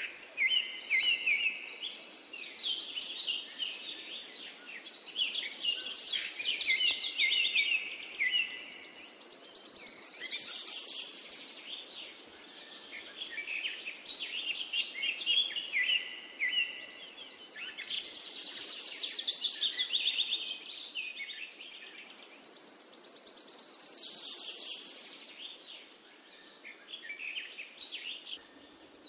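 Songbirds chirping and trilling, a dense mix of short high notes and rapid trills that grows louder and softer every few seconds over a faint background hiss.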